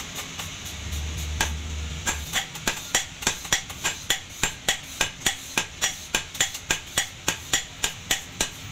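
Hand hammer striking a hot leaf-spring steel cleaver blank on an anvil: a few scattered blows, then from about two and a half seconds in a steady run of about three strikes a second as the blade is forged flat.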